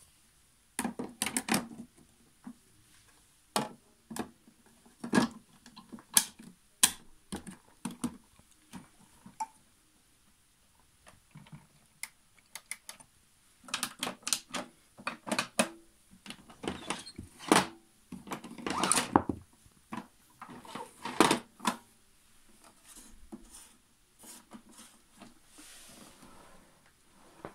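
Plastic clicks, knocks and rattles of a Zelmer Cobra 2000 Plus canister vacuum cleaner's casing being handled, its covers and buttons worked while the motor is off. The sounds come in irregular clusters with short quiet gaps between them.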